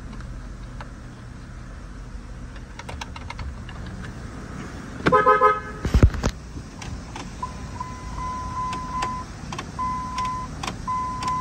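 A 2003 Dodge 1500 pickup running at a low idle, heard from inside the cab, with a few switch clicks. About five seconds in the horn gives a brief stuttering honk, followed by a loud thump. In the last few seconds a steady high tone sounds, breaking off twice.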